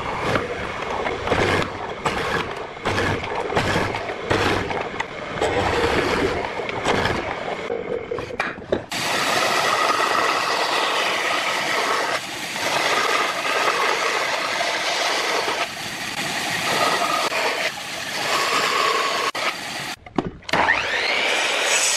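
Hollow-chisel mortiser chopping into a wooden board, with repeated plunges for about nine seconds. Then a bandsaw runs steadily as it cuts through a board. Near the end a miter saw spins up with a rising whine.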